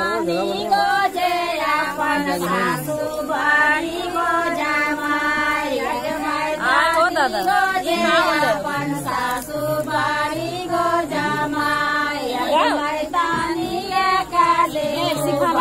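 Several voices singing a melody in long held notes with sliding pitch.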